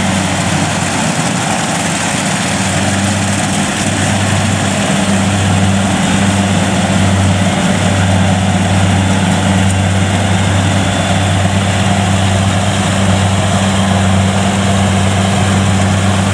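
Kubota DC70 Plus combine harvester's diesel engine running steadily at working speed while it cuts and threshes rice, a loud continuous low drone with the harvester's machinery whirring over it.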